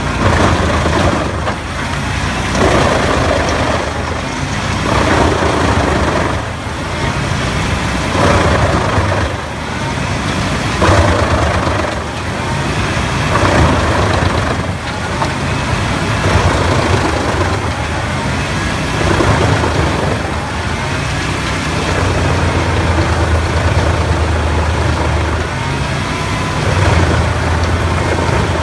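Tractor-driven wood chipper running over a steady low engine drone, with repeated surges of noise every second or two as wood goes through the chipper.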